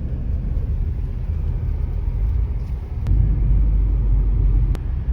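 A car driving, a steady low rumble of engine and road noise, with two faint ticks, about three seconds in and near the end.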